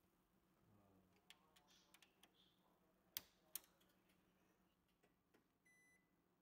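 Faint clicks from a Toshiba e-STUDIO 657 photocopier as its power switch is worked, the two loudest about three seconds in, with a faint low hum coming in. Near the end the copier gives a short high beep as it powers up into service mode.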